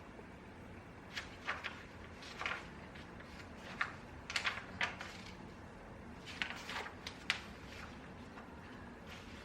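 Small desk sounds of someone studying: about a dozen brief, soft scratches and taps at irregular intervals, clustered in twos and threes, over a steady low room hum.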